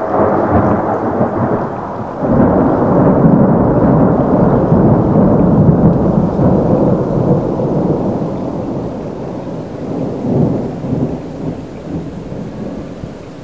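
Thunder rumbling. It sets in suddenly, surges again about two seconds in, then rolls on and slowly dies away over the next ten seconds.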